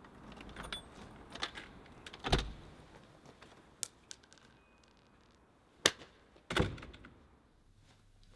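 A bunch of keys jangling and a key turning in a front door's lock, with a run of clicks and a dull thump about two seconds in. Later comes a sharp click and another thump as the door is opened.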